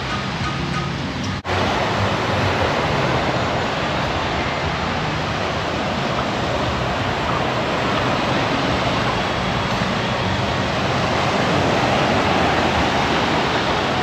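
Steady rushing noise of small waves breaking on a sandy beach, broken by a sudden, very short dropout about a second and a half in.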